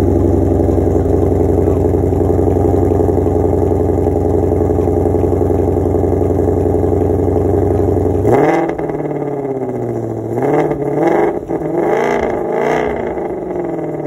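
Ford Mustang Shelby GT500's supercharged 5.2-litre V8 running steadily through its quad-tip exhaust for about eight seconds. It then gets a quick rev and a drop, followed by several short throttle blips that rise and fall before easing back toward idle.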